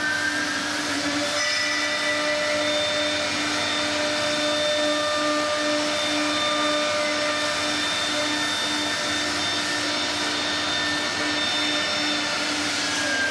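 Three-spindle CNC router running, its air-cooled spindles whining steadily as the bits cut into a wooden board, over a steady hum. A pitch rises right at the start and falls away near the end.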